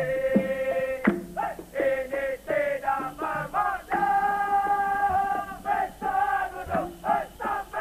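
Dikir barat music: a male voice sings in Malay, holding one long note at first, then moving quickly up and down with another long held note about four seconds in, over steady percussion beats that include a hanging gong.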